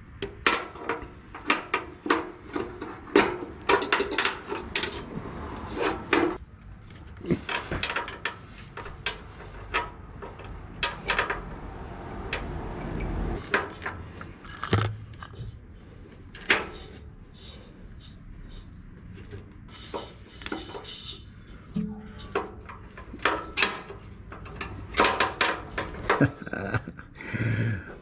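Irregular metallic clinks and knocks of a bolt and fittings against the inside of a steel chassis rail, as a hand works them into place.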